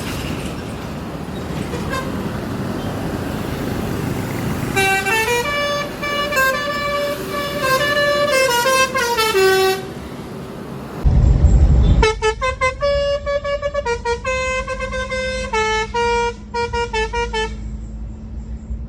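Six-trumpet telolet air horn playing a stepping melody of pitched notes, then after a brief loud low rumble a second tune of shorter, choppier notes. Steady noise runs under the first few seconds before the horn starts.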